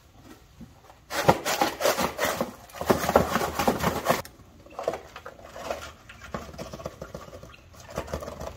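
Arm & Hammer super washing soda poured out of its cardboard box, a dense gritty hiss of granules starting about a second in and lasting some three seconds, followed by lighter scraping and patter as the powder is scooped and tipped.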